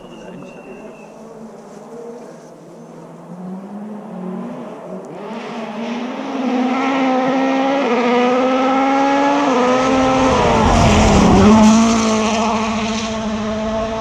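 Rally car coming flat out down a gravel forest stage: its engine note climbs and grows louder as it approaches, peaks as it passes close about eleven seconds in with a sudden drop in pitch, then runs on lower as it pulls away.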